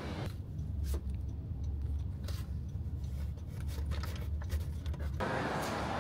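Plastic-and-card packaging of an SD card handled in the hand: a few scattered clicks and scrapes over a low, steady rumble.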